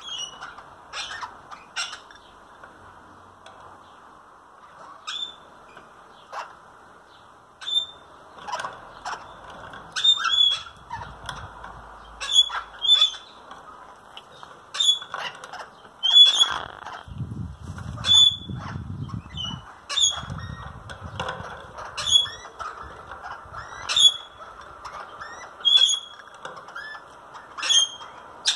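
Derbyan parakeets calling: short, sharp squawks, a few at first, then repeated about once a second.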